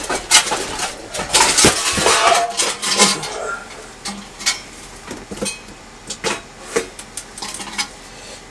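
Hard objects clinking and clattering as someone rummages and handles things on a workbench: a busy run of knocks and rustling in the first three seconds, then scattered single clicks.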